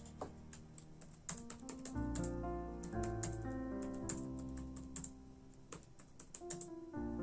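Typing on a computer keyboard: quick, irregular keystroke clicks, over soft background music with a bass line that comes in about two seconds in.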